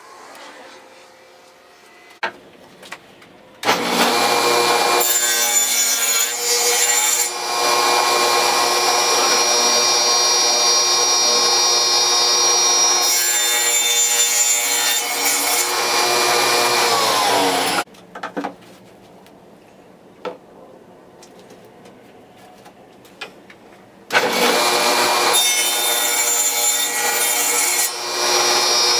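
An electric power tool runs steadily, with a whining motor tone, for about fourteen seconds. It winds down with a falling pitch, and after a few clicks starts again about 24 seconds in.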